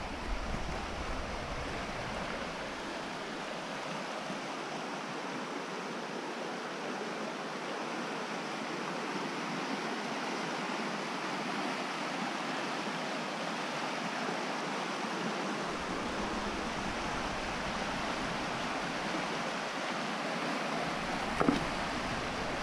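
Shallow river rapids rushing steadily over stones, with a low wind rumble on the microphone at times. Near the end there is a short splash as the neodymium magnet on its rope lands in the water.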